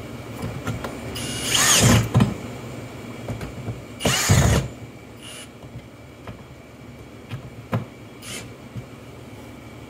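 Milwaukee Fuel brushless cordless drill driving screws into a wall in two bursts, the first about a second long and the second shorter, its motor pitch rising and falling in each. A few light clicks follow near the end.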